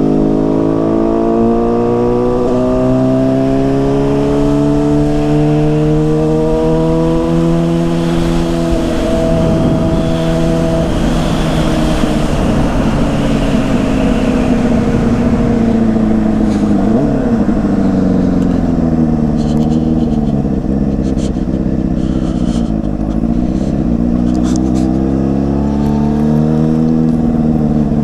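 Yamaha Fazer 600 inline-four engine running through a WR slip-on exhaust while riding. It pulls steadily up through the revs for the first several seconds, with wind rushing past. Later the pitch falls and climbs again a few times as the throttle is eased and reopened.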